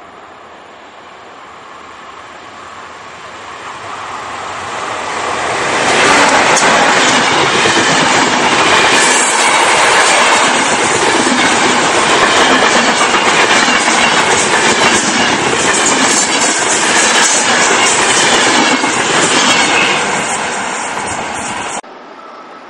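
Locomotive-hauled express passenger train approaching and passing at speed, its wheels clattering over the rail joints. The sound builds over the first few seconds, stays loud while the coaches go by, and cuts off suddenly near the end.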